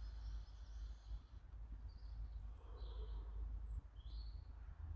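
Quiet outdoor ambience: a low steady wind rumble on the microphone, with birds chirping a few short times in the middle. A soft breath drawn through a dry-herb vaporizer fades out about a second in.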